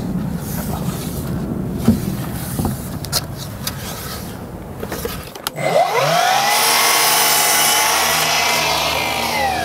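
A few light knocks as a timber cladding board is handled. About five seconds in, a Milwaukee sliding mitre saw spins up with a rising whine, cuts through a Thermowood cladding board, and winds down near the end.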